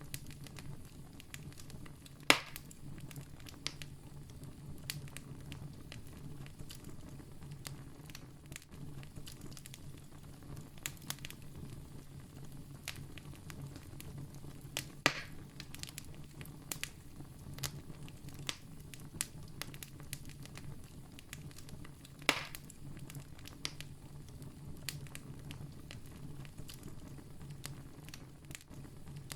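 Wood campfire crackling, with many small ticks and snaps and three sharper, louder pops: about two seconds in, about halfway, and about three-quarters of the way through. A low steady rumble runs underneath.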